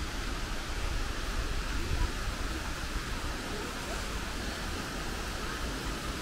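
Steady rush of falling water: an even hiss with a low rumble underneath, unchanging throughout.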